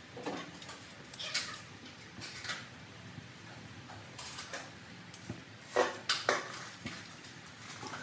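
Wooden chopsticks clicking and scraping against a plate of fried noodles in scattered light taps, with two sharper clacks a little past the middle.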